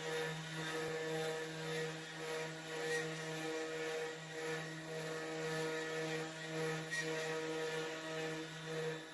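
CNC router spindle running with a steady whine while carving wood, its loudness rising and falling as the cut goes on.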